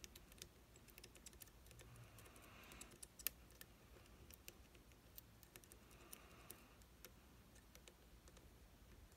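Faint, scattered small clicks of lock picks working the pins of an IZIS pump lock held under heavy tension, with one sharper click about three seconds in.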